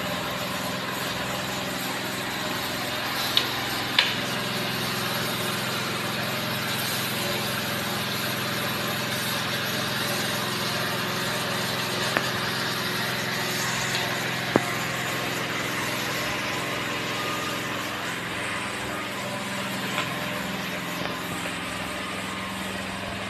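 Small engine-driven pressure washer running steadily, with the hiss of its spray jet hitting the floor, and a few sharp clicks or knocks.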